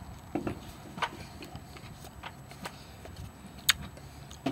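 A bite into a crisp, well-cooked grilled tortilla quesadilla and close-up chewing, with irregular sharp crunchy clicks every half second or so.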